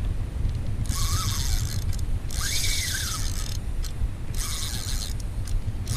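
A spinning reel is cranked in short bursts of about a second each, its gears whirring as a hooked redfish is reeled toward the boat. A low wind rumble on the microphone runs under it.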